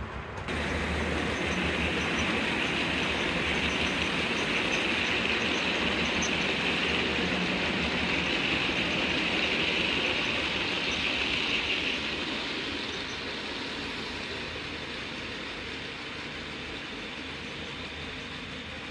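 A long freight train passing: a steady rush and rumble of wheels on rail that starts suddenly about half a second in, holds, then fades away from about twelve seconds in.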